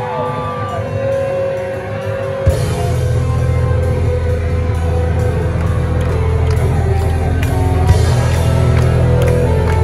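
Live rock band playing loud. A thinner passage with sustained ringing tones gives way, with a sharp hit about two and a half seconds in, to the full band playing hard with a heavy low end.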